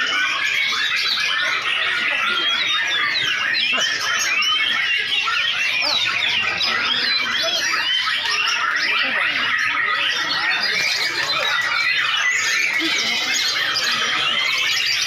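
Many white-rumped shamas singing at once in competition, a dense, unbroken tangle of quick rising and falling whistles and chattering phrases.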